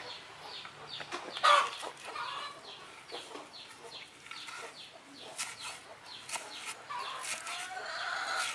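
A knife chopping herbs on a cutting board in repeated sharp taps, with chickens clucking in the background.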